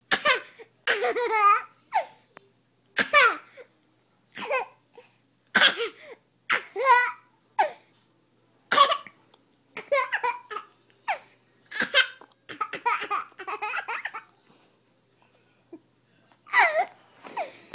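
Baby boy hiccuping and laughing at his own hiccups: short sudden vocal bursts and high-pitched giggles, repeating every second or so, with a gap of about two seconds near the end.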